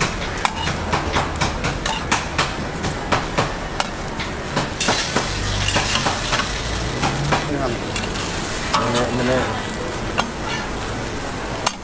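Steel spatula clicking and scraping against a hot flat-top griddle as an egg-and-cheese pancake is rolled up, with food sizzling on the griddle. Several sharp clicks a second in the first half; about five seconds in the sizzling hiss becomes louder and denser.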